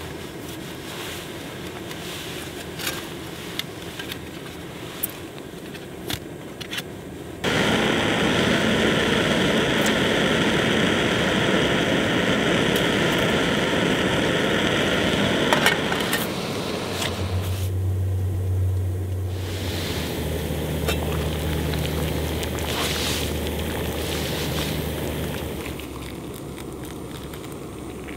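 Small scrapes and clinks as snow is packed into a titanium pot. Then, about seven seconds in, a BRS lightweight gas stove under the pot starts burning with a loud, steady hiss. The hiss cuts back to a softer, steadier sound past the middle.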